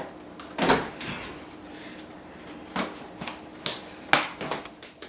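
A series of knocks and clunks from things being handled in a kitchen: a louder knock about a second in, then several lighter ones near the end.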